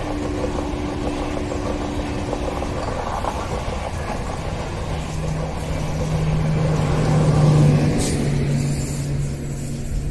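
Tail end of a passenger train of LHB coaches rolling past, with wheels on the rails making a steady rumble. A steady hum joins about halfway in and is loudest as the last car passes, about three-quarters in, then the rumble fades.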